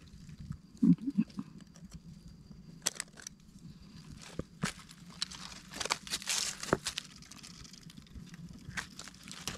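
Dry fallen leaves crackling and rustling in short bursts, with scattered small clicks, as boots shift and hands work through leaf litter to cut mushrooms with a knife. A brief voice sound comes about a second in.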